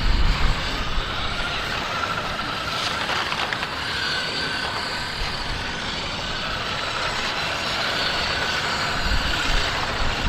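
Toy remote-control cars' small electric motors whining as they drive on pavement, a faint high whine that comes and goes over steady noise.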